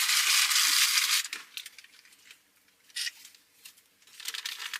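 A takeout food wrapper crinkling and rustling for about the first second, then a few faint clicks of handling.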